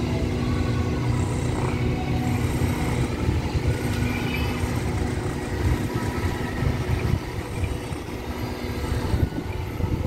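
A diesel-powered passenger train standing at the platform with its engines running steadily: a low drone with a steady hum over it.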